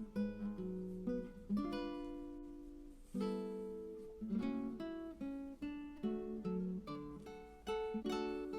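Background music: acoustic guitar plucking and strumming a gentle melody, each note fading out before the next.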